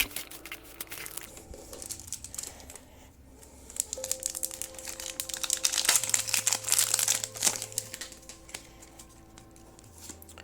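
Crinkling of a Pokémon TCG booster pack's foil wrapper as it is handled and opened, loudest in the middle stretch, over soft background music.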